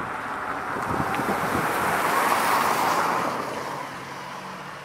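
Jet roar from the four turbofan engines of a Boeing 747-400ERF freighter at takeoff power as it climbs away. It swells for about three seconds, then fades.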